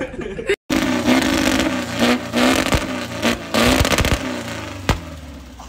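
Straight-piped air-cooled flat-four engine of a 1967 Volkswagen Beetle, fitted with a new MSD ignition, revving hard up and down, with a few sharp pops and cracks from the exhaust. The engine is running a little rich.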